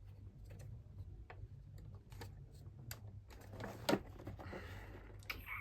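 Scattered light clicks and small knocks of plastic vacuum-cleaner parts being handled and pried during dismantling, with one sharper, louder knock a little before the four-second mark.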